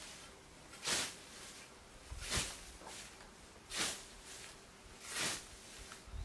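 Hand scythe swishing through tall grass, four even strokes about a second and a half apart.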